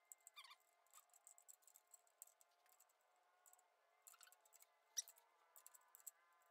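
Faint clicks and metal clinks of wrenches and bolts as an electric motor is fastened to a steel drill-press motor mount, with a couple of short squeaks and one sharper clink about five seconds in. A faint steady hum runs underneath.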